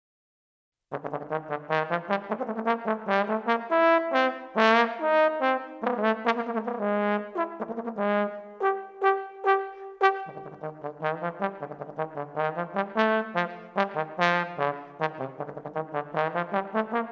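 Solo trombone entering about a second in after silence and playing a fast passage of many short, separately tongued notes, with a few longer held notes in the middle.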